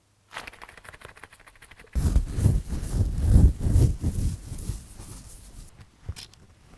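Close-miked scratching against skin: rapid fine scrapes at first, then from about two seconds in a much louder, heavier grinding scratch that eases off near the end, followed by a couple of sharp clicks.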